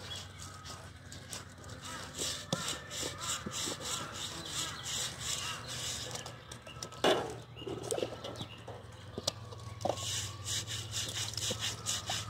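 Repeated scraping strokes on a pig carcass as its skin is worked over to clear the hair, with water poured over the carcass from a dipper. A brief louder sound about seven seconds in.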